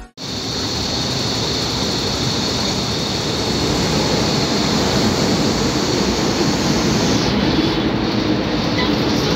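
Steady rushing noise of an MTR metro train in a station. The high hiss thins out about seven seconds in.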